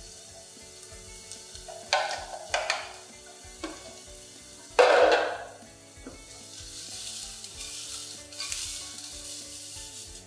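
Thin vegetable strips (carrot, kohlrabi and leek) sizzling in hot oil in a nonstick frying pan as the pan is shaken and tossed. A few short rushes of scraping and sizzling, the loudest about five seconds in, then a steady sizzle. Faint background music.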